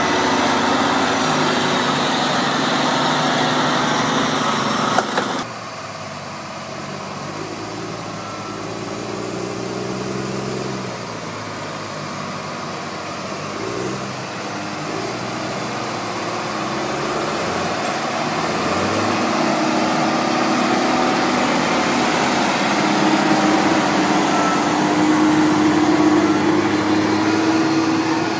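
A heavy truck's diesel engine running, cut off abruptly about five seconds in by an off-road dump truck's diesel engine working under load through deep mud. Its note wavers up and down and climbs and grows louder near the end as it revs harder.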